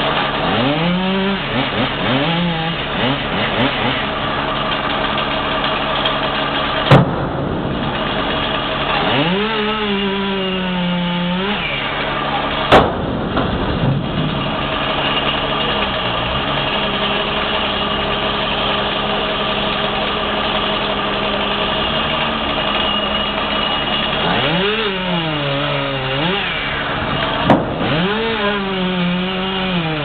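Bucket truck's engine idling steadily, revving up and down in four surges of two to three seconds each. Three sharp knocks stand out, the first about seven seconds in.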